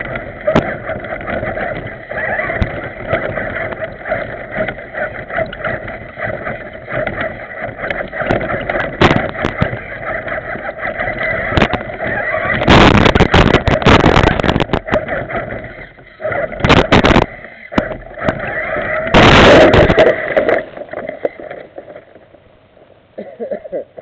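A 4x4 remote-control truck's electric motor and gears whining as it drives over rough yard ground, heard from a camera mounted on the truck. There are two loud spells of rattling and scraping, about halfway through and again about three-quarters through, and the sound drops away near the end as the truck stops.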